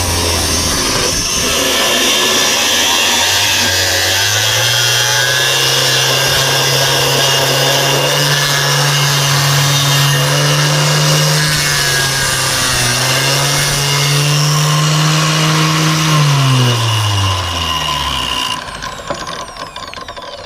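Angle grinder with a large 150 mm cutting disc, running at speed and cutting into a workpiece; its motor note climbs about four seconds in, sags briefly under load midway, then winds down near the end. The disc does not cut all the way through.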